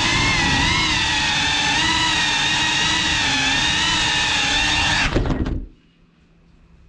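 FPV drone's brushless motors whining, the pitch wavering slightly with throttle, then a few clicks as the motors spin down and cut off about five seconds in, leaving a faint hum.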